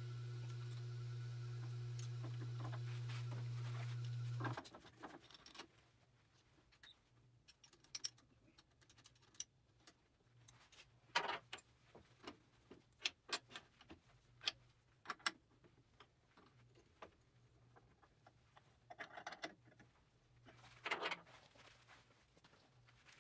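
A steady electric machine hum cuts off about four and a half seconds in. Then come scattered clicks and knocks of metal and wood as a lathe chuck and a red oak bowl blank are handled and fitted on a wood lathe.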